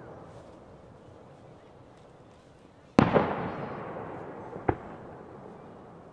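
Aerial fireworks shells bursting. The rumble of an earlier burst fades away, then a loud bang about halfway through rolls off in a long echoing rumble, and a second, sharper pop follows a second and a half later.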